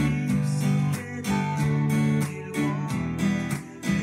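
Steel-string acoustic guitar strummed in a cutting rhythm: chords struck with short, sharp percussive chops at a steady beat, the chord changing a few times.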